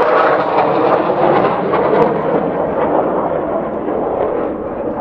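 Four jet aircraft passing low overhead: a loud jet roar that slowly fades away as they pass.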